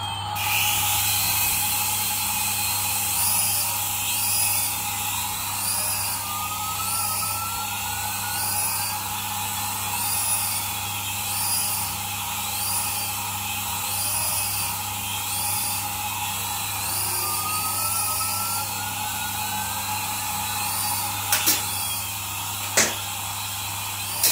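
Toy RC coaxial helicopter's small electric rotor motors whining steadily in flight, with a few sharp knocks near the end.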